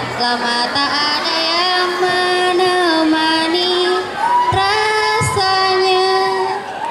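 A teenage girl singing solo into a handheld microphone, holding long notes that bend and waver slightly between phrases.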